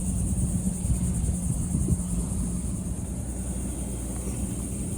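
Boat motor running steadily, a low hum with rumble underneath, under a steady high hiss.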